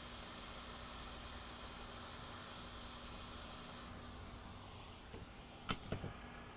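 Hot air rework station blowing a steady, faint hiss of air, heating the board to lift the iPad digitizer FPC connector; the hiss drops away about four seconds in, followed by a few small clicks near the end.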